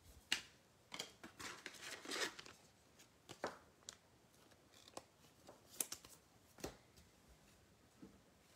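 Faint, scattered rustling and light clicks of trading cards and foil card-pack wrappers being handled on a table, several short sounds a second or so apart.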